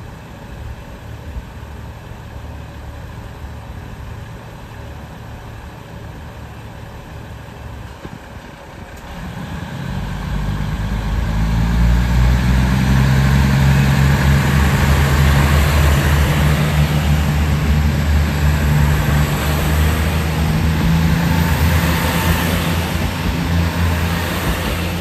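JR Central KiHa 75 four-car diesel multiple unit idling at the platform, then its diesel engines open up about nine seconds in and run loud and steady as the train pulls away from the station.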